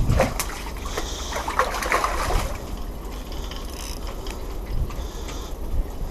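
Water splashing and slopping as a hooked mullet thrashes at the surface, with a few light clicks, busiest in the first couple of seconds and calmer after.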